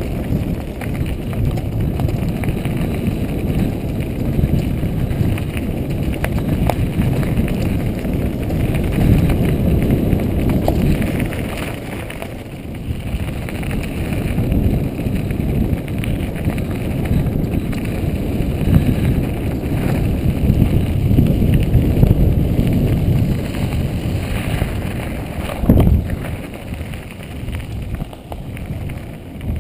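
Wind rushing over a helmet camera's microphone and mountain bike tyres rolling fast over a gravel trail, easing briefly about twelve seconds in, with one sharp thump near the end.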